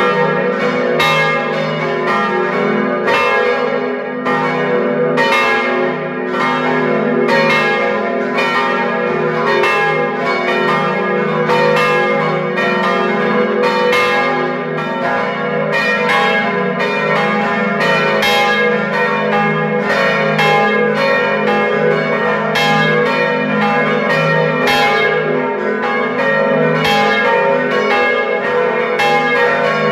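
Five swinging church bells (Agnes minor, Kruisklok, Benignus, Adrianus and Jezus Maria Johannes) ringing together in a full peal, heard close up inside the bell chamber: overlapping clapper strikes, about two a second, over a steady deep hum of the bells' ringing tones.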